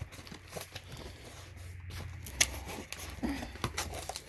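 Cardboard shipping box being opened by hand, the flaps and packing rustling and scraping with a few light clicks.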